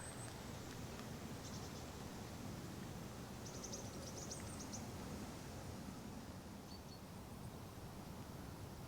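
Faint woodland ambience with a few brief runs of high, rapid chirps from a small bird, about a second and a half in and again between three and a half and five seconds.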